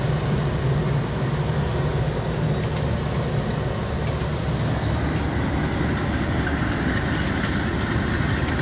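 Passenger train rolling out of the station, heard from an open coach doorway: a steady rumble of wheels on the rails with a low hum underneath.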